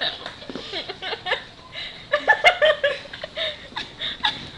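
Several teenage girls laughing and giggling in short bursts, with a brief lull about a third of the way in.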